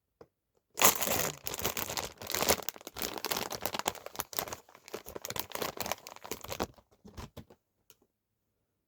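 Blind-box packaging being torn open and crinkled by hand, a busy rustling that starts with a sharp rip about a second in and runs for about six seconds, followed by a few faint clicks.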